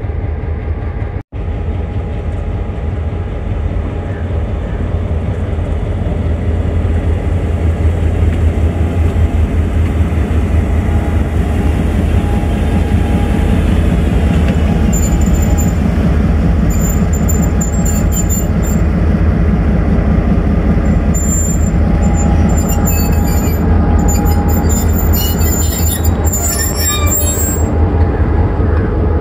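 Diesel locomotive running with a loud, steady low drone that grows louder over the first several seconds. From about halfway on, steel wheels squeal on the rails in short, high bursts.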